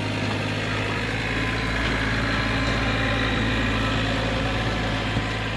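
1999 John Deere 4200 compact tractor's diesel engine running steadily as the tractor drives up, growing louder as it approaches; the brush hog is not yet engaged.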